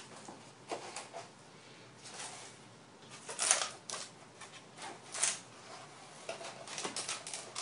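Cardboard being folded and handled: flaps bent in along score lines and pushed across the countertop, in irregular rustles and scrapes, the loudest about three and a half and five seconds in.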